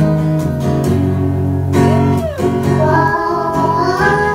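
Acoustic guitar strummed in held chords, with a toddler singing along into a microphone: one short sung phrase about halfway through and another near the end.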